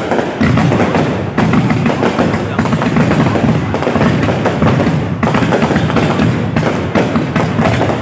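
A dense, unbroken barrage of fireworks: many overlapping bangs and crackles with a deep thumping undertone.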